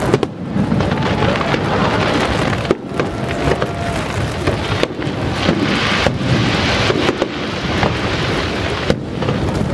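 Fireworks display with aerial shells bursting: several sharp booms a second or two apart over a continuous crackling din.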